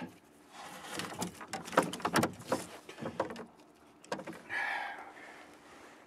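Irregular knocks and taps of a white bass flopping on a plastic kayak deck while a hook is worked out of its mouth beside a spinning reel, with a brief rush of noise about four and a half seconds in.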